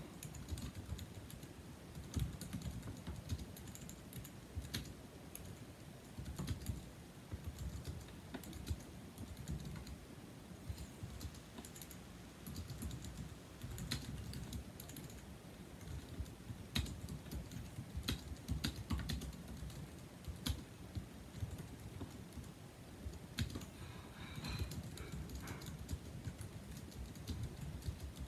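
Steady, rapid typing on a 2007 Apple aluminum wired keyboard with numeric keypad (A1243), its low-profile scissor-switch keys giving a continuous run of quick key taps.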